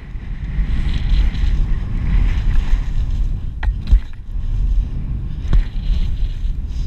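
Wind rushing over a helmet camera's microphone as skis run through deep powder: a steady low rumble with a hiss over it, broken by a few sharp knocks near the middle.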